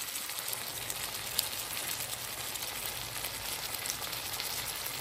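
Chicken and red kidney beans sizzling in oil and masala in a stainless steel frying pan: a steady crackling hiss with one sharper pop about one and a half seconds in.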